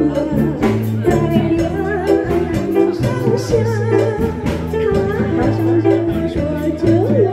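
A woman singing into a microphone with live band accompaniment of electric guitar and keyboard over a steady beat, amplified through a PA, holding long notes with vibrato.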